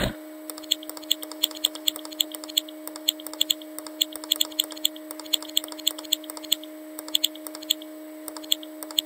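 Computer mouse button clicked rapidly and repeatedly, a few sharp clicks a second, over a steady low electrical hum.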